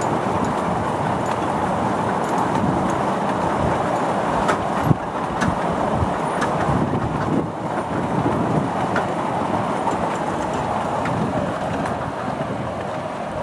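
Miniature railway train running on the track: a steady rumble of wheels on rail with scattered sharp clicks.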